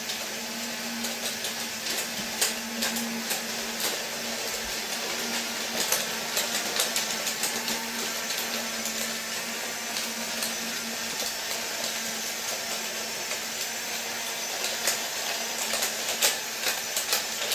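Toy Disney monorail playset trains running on their track: small electric motors whir steadily, with many scattered light clicks.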